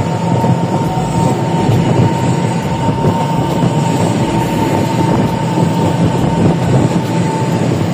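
Taiwan Railways EMU700 electric commuter train pulling out along the platform, its cars rolling past with a steady high whine that stops near the end.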